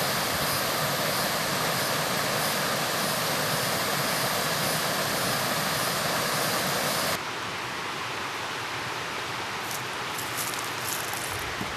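Steady rush of water pouring over a dam, dropping suddenly to a softer rush about seven seconds in, with a few light clicks near the end.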